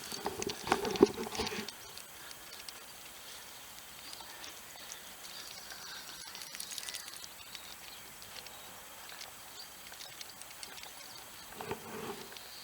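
Two dogs playing rough outdoors: a short flurry of scuffling noise about a second in and a smaller one near the end, over a quiet outdoor background.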